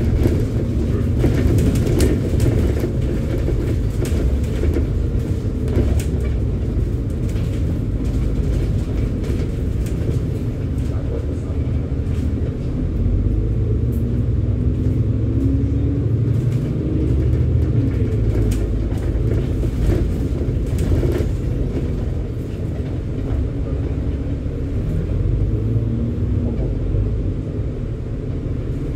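Cabin sound of a double-decker bus on the move: the engine running under a steady low rumble of road noise, with frequent small rattles and clicks from the bodywork.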